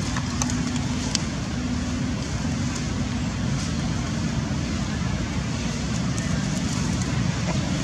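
Steady low rumble of outdoor background noise, with a couple of faint clicks about half a second and a second in.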